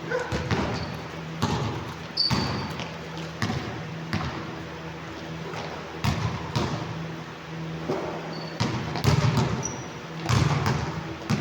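Basketball bouncing on a court during a game: irregular knocks of the ball being dribbled, with a few brief high squeaks of sneakers on the floor.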